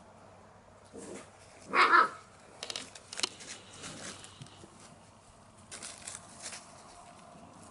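English Goldendoodle puppy giving one short bark about two seconds in, followed by a few light scuffs and clicks as it plays.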